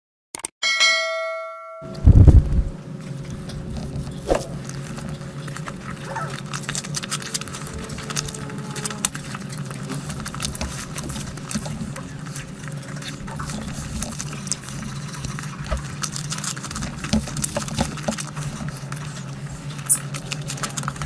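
A short ringing chime, then a thud, then a steady low hum with many small irregular clicks, smacks and pops, the eating sounds of people eating rice and curry by hand.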